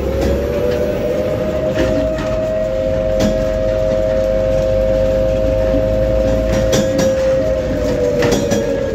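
A moving vehicle's motor running with a steady whine that drops in pitch near the end as it slows. Scattered rattles and clicks sound over a low rumble.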